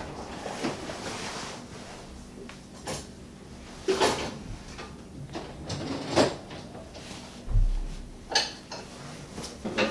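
A Synergy Endorphin neoprene wetsuit being pulled on over the legs: irregular rustling and rubbing of the suit as it is tugged up, with several sharper scuffs and one low thump about three quarters of the way in.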